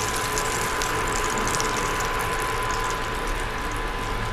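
Hot frying oil sizzling in a skillet on an induction cooktop, with a fine crackle, over a steady high whine.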